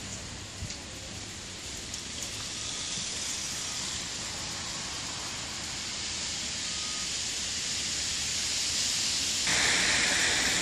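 Steady hiss of light rain, with a few small ticks of drops in the first seconds. The hiss slowly grows, and about a second before the end it turns suddenly louder and brighter.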